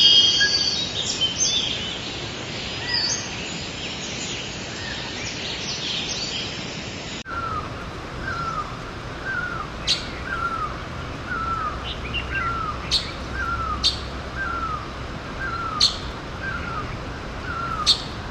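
Birdsong: assorted high chirps and whistles over a steady outdoor hiss. About seven seconds in, the sound switches to a single bird repeating a short falling call about one and a half times a second, with a few sharp high chips among the calls.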